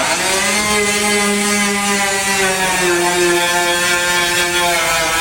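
A power tool's motor running steadily under load, its pitch sagging slightly about three seconds in.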